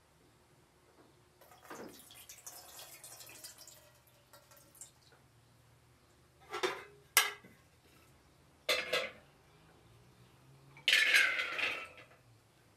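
Aluminium cooking pot clinking and knocking on the metal grate of a gas burner, with several sharp clanks a few seconds in, then a splashing pour lasting about a second as a bowl is tipped into the pot near the end.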